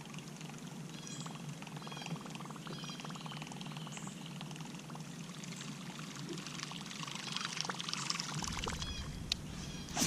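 Fishing reel being cranked to retrieve a topwater popper: a faint, steady whir of fine rapid ticks.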